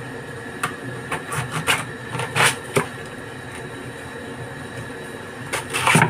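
A kitchen knife cutting through a head of white cabbage on a chopping board: a run of short crisp cuts in the first three seconds, then a louder cluster of cuts near the end, over a steady background hum.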